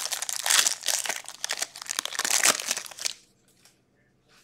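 Foil wrapper of a hockey trading-card pack being torn open and crinkled, stopping about three seconds in, followed by a few faint ticks of cards being handled.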